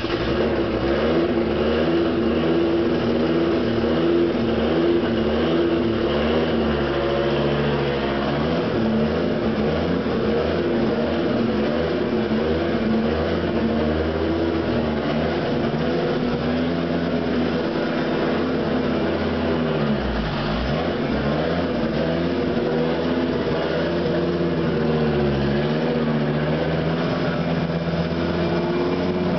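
Car engine running through a 4.5-inch open exhaust, steady without big revs, its pitch wavering slightly and dipping briefly about two-thirds of the way through and again near the end.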